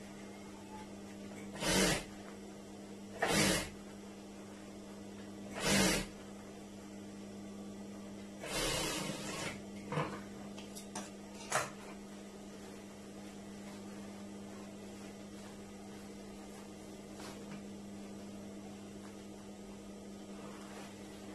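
Steady hum of a Juki industrial sewing machine's motor. Over it, in the first half, come three short noisy bursts about a second and a half apart, a longer one near the middle, then a few sharp clicks, before only the hum is left.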